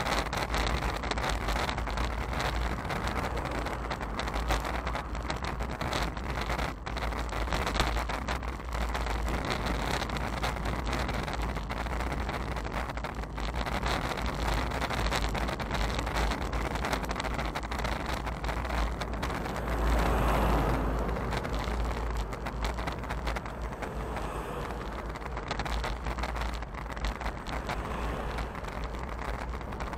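Wind noise on a moving bicycle's action-camera microphone, a steady low rumble with road and tyre noise, swelling louder for a moment about two-thirds of the way through.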